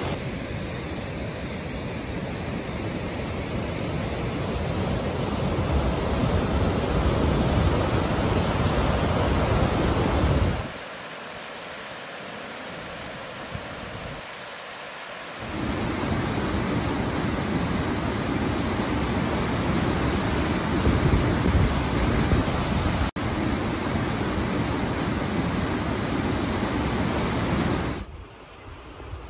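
Steady roar of rushing water from Sandstone Falls, a waterfall almost a quarter of a mile wide on the New River. It drops to a quieter rush for a few seconds about ten seconds in, comes back, and falls away again near the end.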